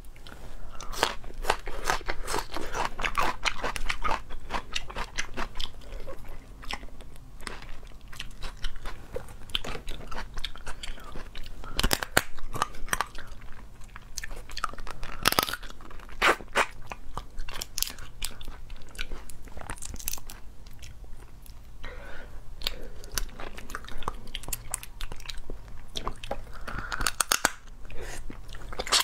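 Close-up biting and chewing of marinated crab, the shells crunching and cracking between the teeth in irregular sharp snaps, the loudest about 12 and 15 seconds in.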